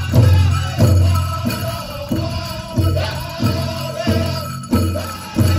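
Powwow drum song: a large drum struck in a steady beat, about three beats every two seconds, with singers' voices over it.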